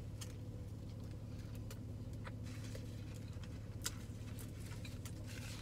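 A person chewing a bite of fried chicken sandwich, with irregular soft clicks and crunches from the mouth, over a steady low hum.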